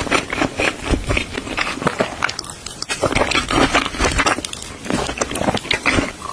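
Mouth chewing and biting raw shrimp with rice: a dense run of quick wet clicks and smacks.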